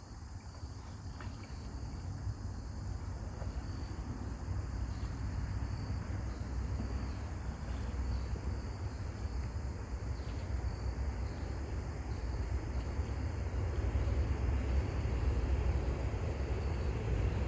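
Wind buffeting the microphone, a low rumble that slowly grows louder, with a faint steady insect drone high above it.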